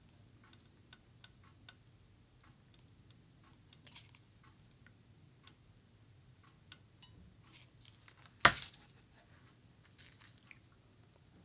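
Light rustles and small ticks of hands handling small craft pieces, with one sharp tap about eight and a half seconds in.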